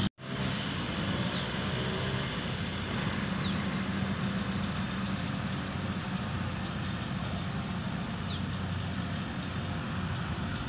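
Steady engine hum with a low drone, briefly cutting out at the very start. Four short, high whistles falling in pitch sound over it at intervals.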